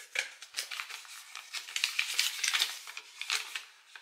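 Folded paper slip rustling and crinkling as it is picked up and unfolded by hand, in irregular crackles that are loudest a little past the middle.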